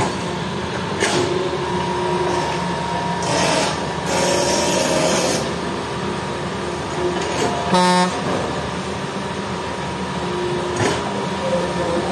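Hitachi crawler excavator's diesel engine running steadily under hydraulic load as the bucket works wet sand in the river, with water splashing. A brief toot sounds about eight seconds in.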